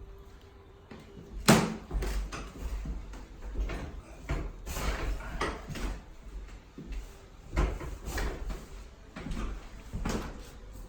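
A series of sharp knocks and clicks over a low rumble from a chiropractic adjustment on a treatment table. The loudest comes about one and a half seconds in.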